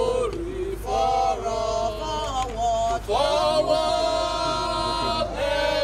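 A group of protesters singing together in chorus, holding long notes that rise and fall like a chanted protest song.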